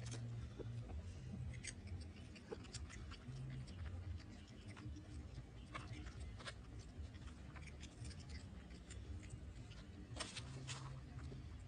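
Faint scattered clicks and light rustling as a baby macaque handles green lotus seeds in a plastic basket and eats them, with a quick cluster of clicks about ten seconds in, over a low steady hum.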